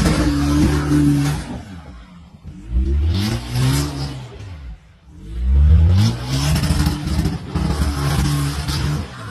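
Off-road 4x4 engine revved hard in three long surges, each rising and falling away, with a rushing hiss over the top of each surge.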